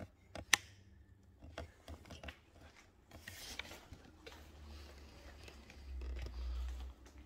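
Faint footsteps and camera-handling noise: a sharp click about half a second in, then scattered light clicks and rustles, a brief hiss a few seconds in, and a low rumble near the end.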